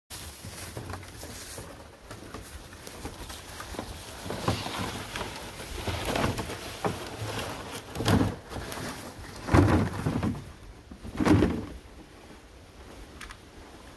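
Footsteps crunching and shuffling through dry fallen leaves, with a few louder scuffs and thumps about eight to eleven seconds in.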